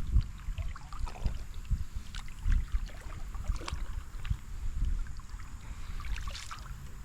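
Scattered small knocks, clicks and rustles of people moving about in a canoe, over an uneven low rumble.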